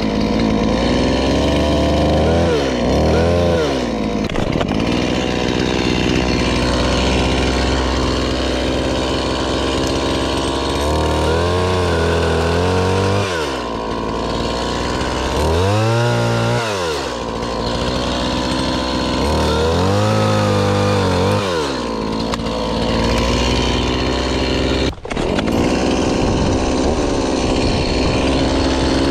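Two-stroke chainsaw running at high revs while cutting tree limbs, its pitch dropping and climbing back several times as the chain bogs in the wood and frees.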